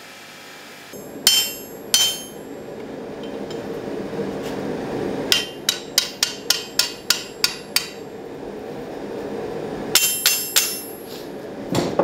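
Hand hammer striking a red-hot sword blade on an anvil to straighten it, each blow ringing: two single strikes, then a quick run of about ten at some four a second, then a few more. A steady drone runs underneath.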